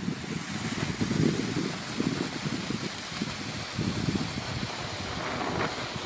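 Lesli 'Joystick' handheld firework fountain burning, a steady rushing hiss as it sprays white sparks, with a few faint crackles near the end.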